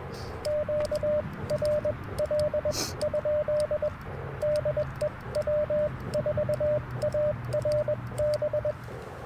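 Morse code (CW) sidetone from an Icom IC-705 transceiver: a single steady mid-pitched tone keyed in quick dots and dashes for about eight seconds, with faint clicks. It is the operator sending a QRL query to ask whether the 40-metre frequency is already in use.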